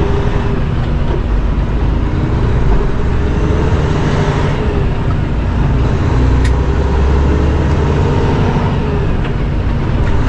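Peterbilt 579 semi truck's diesel engine running steadily under way, with road and tyre noise, as heard from inside the cab.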